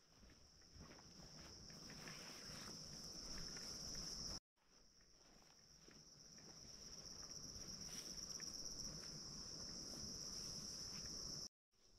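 A steady high-pitched insect chorus, with faint footsteps on a dry pine-needle path beneath it. The sound drops out for a moment twice.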